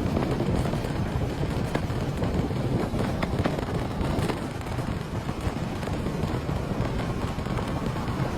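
A car driving in strong wind and rain: a steady rumble of road and wind noise, with a few sharp ticks.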